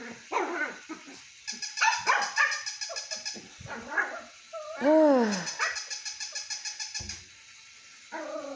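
Battery-operated plush puppy toy moving on a tile floor with a buzzing mechanical whir, alongside short barks and yips and one longer whine about five seconds in.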